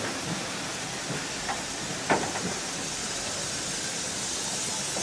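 GWR steam locomotive with steam hissing steadily, and a brief sharp clank about two seconds in.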